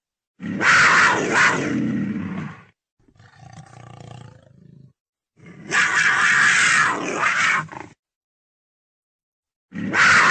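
Leopard calling: three loud, rough calls of about two seconds each, with a quieter, lower call between the first two.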